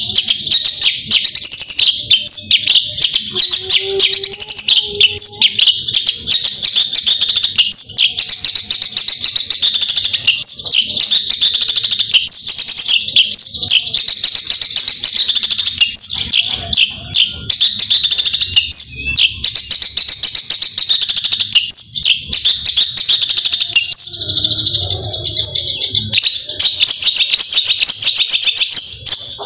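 Long-tailed shrike (cendet) singing nonstop in a loud, rapid chatter of high chirps and harsh clicking "tembakan" bursts, typical of a bird in full song (gacor). A lower-pitched sound briefly joins in near the end.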